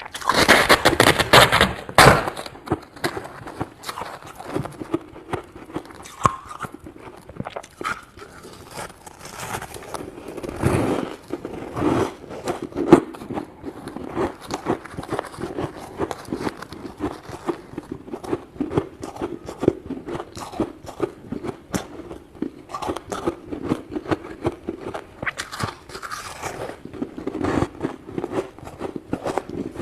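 Thick crunchy freezer frost being scraped: a dense, irregular run of crunching, crackling scrapes, loudest in the first two seconds, with a couple of harder crunches later on.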